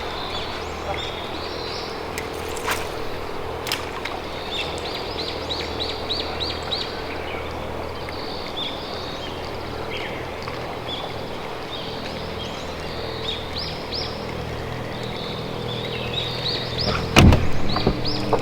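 Wild birds chirping and calling, including a quick run of repeated notes, over a steady low hum. A loud knock comes near the end.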